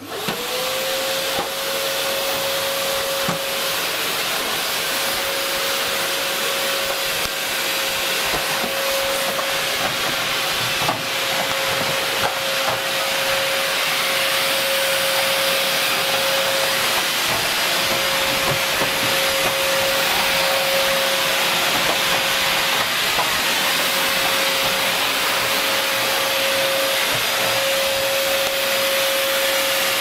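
Canister vacuum cleaner switched on: its motor whine rises to pitch within about a second, then it runs steadily, a constant whine over the rush of air through the hose.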